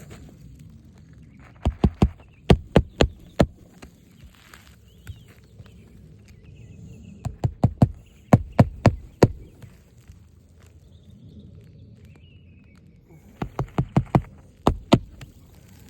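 Hammer driving roofing nails into a new shingle: three bursts of sharp strikes, seven or eight blows each, a few seconds apart.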